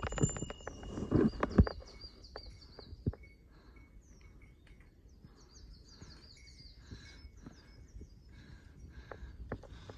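A songbird singing runs of short, high, falling notes, two runs a few seconds apart. Under it, footsteps on a stony mountain trail, with a few heavy knocks in the first two seconds.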